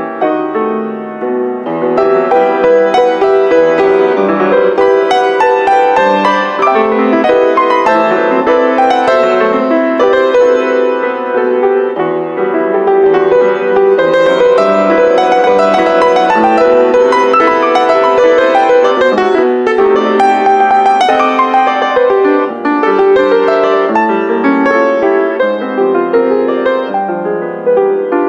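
A grand piano played four hands by two pianists: a dense, continuous stream of chords and running notes.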